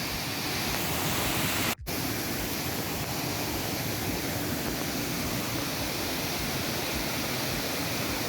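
Waterfall rushing as a steady, even roar of falling water, cut off for an instant about two seconds in and then carrying on the same.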